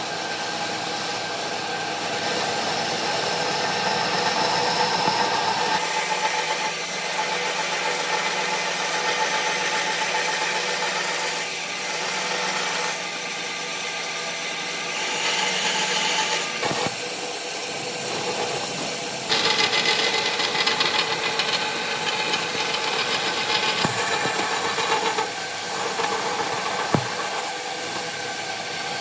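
Band saw running and cutting through wooden blocks: a steady machine hum with the blade's hiss through the wood, changing abruptly a couple of times, with a single sharp tick near the end.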